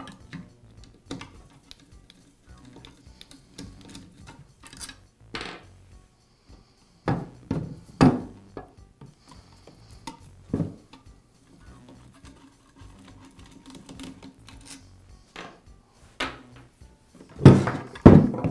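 Screwdriver and handling noise while a Makita angle drill's gearbox is unscrewed from its motor housing: light clicks and scrapes of metal on metal, broken by a few sharp knocks as parts are set down on the wooden bench. The loudest is a quick cluster of knocks near the end as the drill body is lifted and turned.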